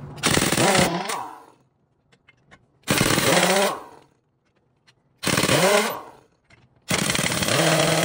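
Heavy pneumatic impact wrench hammering on a truck's wheel lug nuts, undoing them in four bursts of about a second each, the last one longer, with pauses between.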